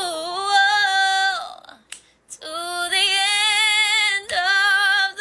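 A woman singing a cappella with no accompaniment, holding long melismatic notes with vibrato. There is a short pause for breath about a second and a half in, then another long held note, and a new phrase begins near the end.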